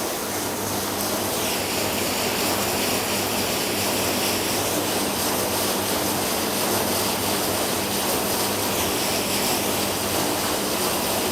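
Hobart EcoMax hood-type commercial dishwasher in its wash cycle: the wash pump runs and water sprays inside the closed hood, a steady hiss over a low hum. This is the washing stage, which goes on until the rinse water reaches about 82–85 degrees.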